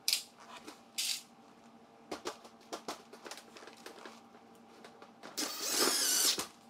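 Cordless drill driving a screw through a corrugated galvanized metal wall panel, one burst of about a second near the end. Before it come a few sharp clicks and light taps of the metal being handled.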